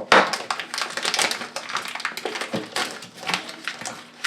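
Packaging rustling with a rapid run of light clicks and taps as a package of airgun slugs is opened and handled.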